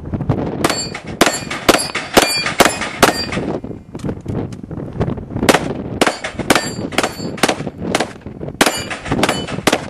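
Rapid string of 9 mm shots from a Glock 34 pistol, about two a second, each hit on the steel plates answered by a short metallic ring. The firing pauses for a couple of seconds partway through, then resumes at the same pace.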